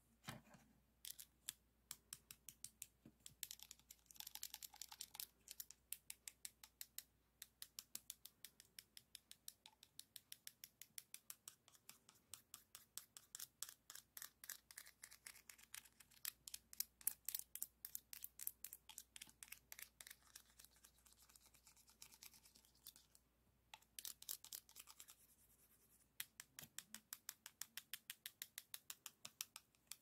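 Plastic diamond-painting drill pens tapped and clicked against each other in a quick, soft, steady run of light clicks, several a second. Twice there are brief stretches of scraping.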